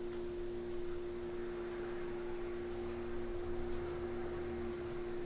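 A steady hum on one held pitch, with a fainter lower tone beneath it, and a few faint ticks.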